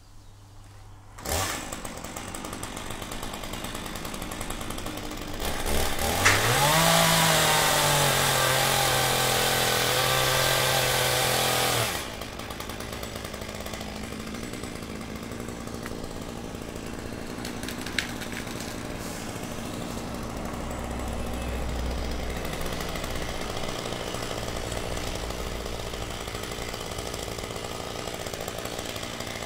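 Two-stroke chainsaw comes in suddenly about a second in and runs at low revs. It is throttled up to high revs for about six seconds, then drops back and idles steadily.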